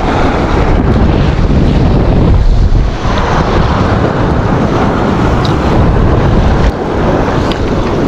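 Strong wind buffeting the microphone: a steady, loud rumbling rush with no break. A few light clicks come through in the second half.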